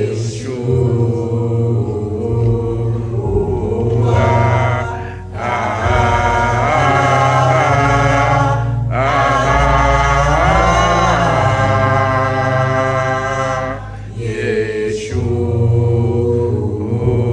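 Gospel worship song: voices singing long held, sliding phrases over an instrumental accompaniment with a steady bass line.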